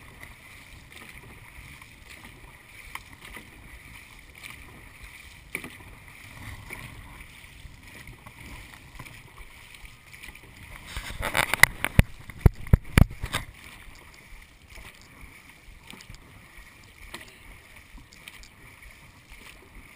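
Dragon boat under paddle: a steady rush of water and paddling noise heard through a camera fixed to the boat. A burst of loud knocks and bangs comes about eleven to thirteen seconds in.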